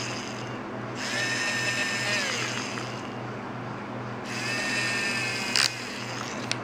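Toy dentist's drill from a Play-Doh Doctor Drill 'n Fill playset whirring in three high-pitched runs, each winding down in pitch as it stops. Two sharp clicks follow near the end.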